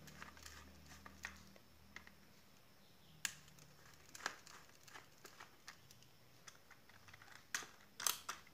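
A screwdriver working a terminal screw on a plastic electrical switchboard and a wire being pulled free of the terminal. Faint, scattered small clicks and taps, with a few sharper ticks.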